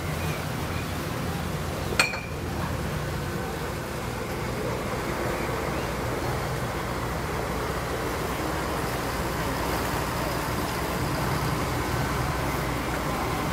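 Passenger excursion boat's engine running steadily as the boat passes, a low drone under an even wash of noise. A single sharp click with a brief ring about two seconds in.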